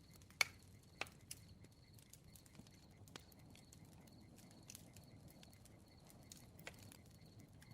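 Quiet bonfire crackling: irregular sharp pops and snaps over a faint low hiss, the loudest pop about half a second in.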